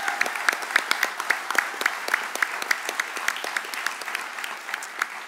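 Audience applauding, a dense patter of many hands with some louder single claps standing out.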